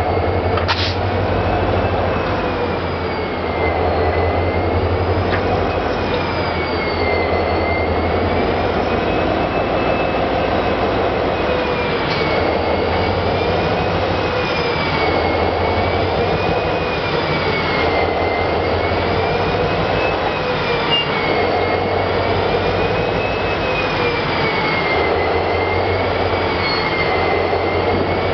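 A slow rail move, with the Nickel Plate Road Berkshire 757 steam locomotive and its cars being pushed: a steady low rumble and engine drone, loud throughout. Over it a thin squeal rises and falls in pitch again and again, about every three to four seconds.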